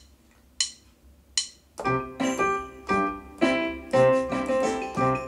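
Casio LK-520 electronic keyboard: two short, sharp clicks in the first second and a half, then from about two seconds in a tune played with melody and chords in a rhythm.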